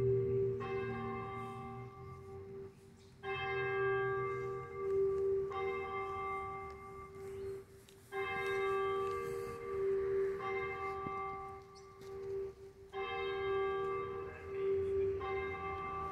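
Church tower bell ringing, struck again every few seconds, each stroke ringing on with a long hum so that the tone never dies away between strokes.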